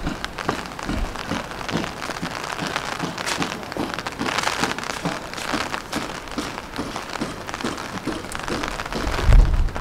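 Rain pattering in many small irregular ticks, with footsteps on wet ground about two a second. A louder low rumble comes near the end.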